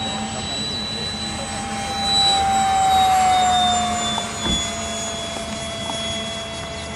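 Electric ducted fan of a radio-controlled F-35C model jet whining in flight. The whine swells as the model passes closest, about two to three seconds in, then drops slightly in pitch and fades a little as it moves away.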